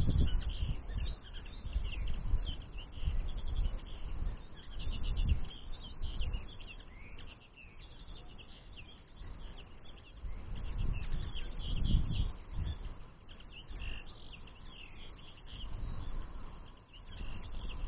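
Small songbirds twittering in a steady stream of fast, high chirps, over intermittent low rumbling.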